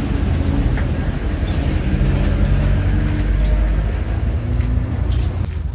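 A steady low rumble, with a few light knocks as wood-grain particleboard cabinet panels are handled.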